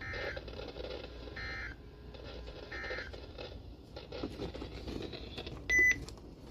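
Emergency Alert System end-of-message tones from a weather radio: three short screechy digital data bursts about a second and a half apart, over radio hiss. A little under a second before the end comes a single short, sharp electronic beep, the loudest sound here.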